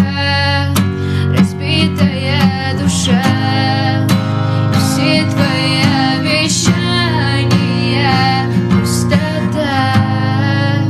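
Music: a guitar-led passage of a song with no sung words, a steady bass under a wavering melody line.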